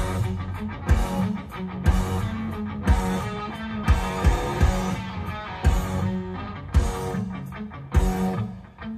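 Rock music with guitar, over a heavy beat that lands about once a second.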